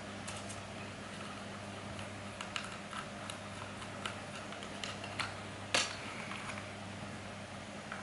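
Small Phillips screwdriver clicking and scraping on the plastic frame of a Syma X5C quadcopter while screws are backed out of the propeller guards, with light handling of the plastic; scattered small clicks, the sharpest a little under six seconds in.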